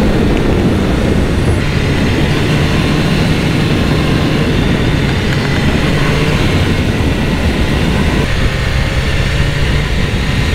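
BMW S1000R's inline-four engine running at a steady cruise on the road, mixed with heavy wind noise on the bike-mounted camera's microphone.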